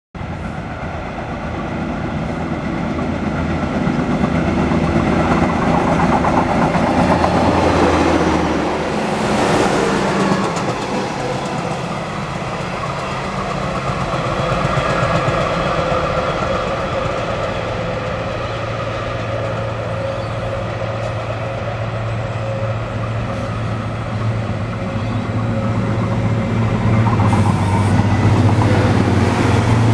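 Trains on the line: a continuous rumble swells to a peak about a third of the way in, then a steady low hum grows louder as rail vehicles approach, with an electric passenger train running past near the end.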